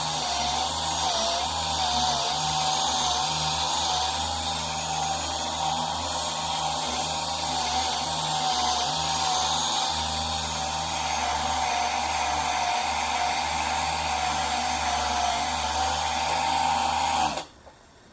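Cordless 12-volt 3-inch polisher running at high speed, buffing a plastic headlight lens with polish: a steady motor whine that wavers slightly in pitch over a hiss. It is switched off suddenly near the end.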